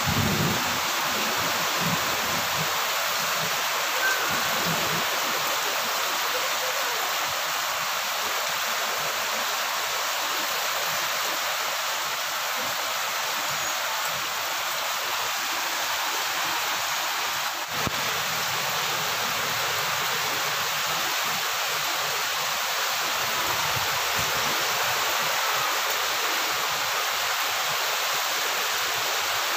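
Heavy rain pouring steadily onto trees, leaves and garden, an even hiss. A low thunder rumble fades out in the first second.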